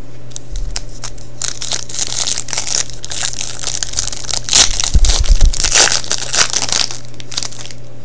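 Foil trading card pack crinkling as it is handled and torn open, loudest about halfway through, with a few dull bumps.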